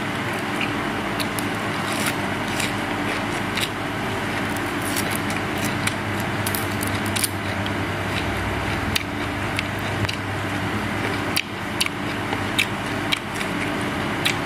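Steady hum and hiss with scattered small clicks and crackles of chewing and of fingers handling food.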